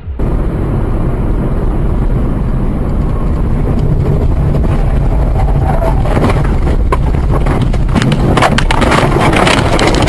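Vehicle interior rumble and road noise picked up by a dash camera, loud and steady, with irregular clicks and rattles building up over the last few seconds.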